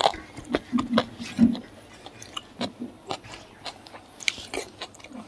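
Chewing and biting of fried pork, with many short wet mouth clicks.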